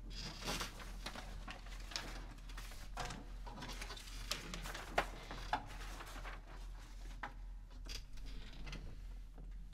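Sheet-music pages rustling and being handled between pieces, with scattered small clicks and knocks from the players shifting with their classical guitars. The sharpest clicks come about five seconds in, over a steady low hum.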